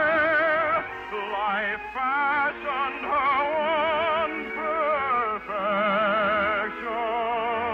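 Operetta singing: a trained voice holding long notes with wide vibrato over orchestral accompaniment, moving to a new note every second or two.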